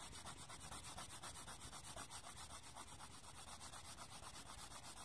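Colored pencil shading on sketchbook paper: a faint, rapid and even scratching of quick back-and-forth strokes.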